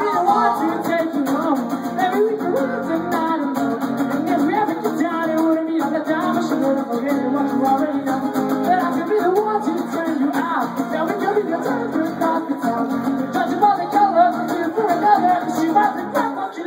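Live acoustic-guitar song: a steel-string acoustic guitar strummed in a steady rhythm while a man sings at the microphone.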